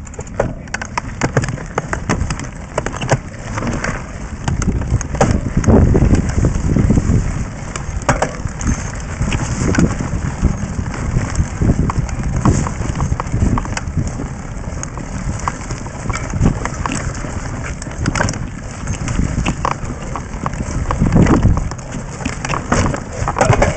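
Mountain bike ridden over a rough dirt singletrack, heard from a camera mounted on the bike: continuous rattling and clicking of the bike over the bumps, brush scraping past, and low rumbling buffets of wind or jolts on the microphone.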